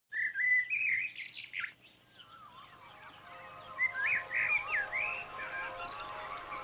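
Small songbirds chirping and twittering in two lively spells, with a quieter gap of about two seconds between them. Faint held musical notes come in under the second spell.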